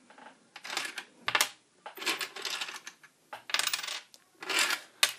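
Coins clinking and jingling as they are picked up and handled, in about six short bursts with quiet gaps between.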